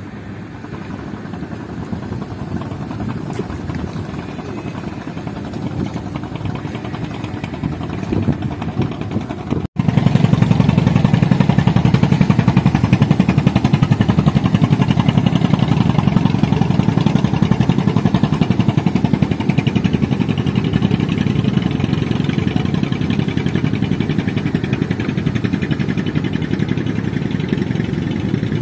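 An engine running steadily with a fast, even pulsing. It is fainter at first, then much louder after an edit about ten seconds in.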